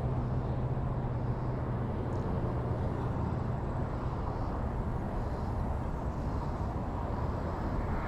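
Steady wind rumbling on the microphone outdoors, with a low hum underneath that fades about three seconds in.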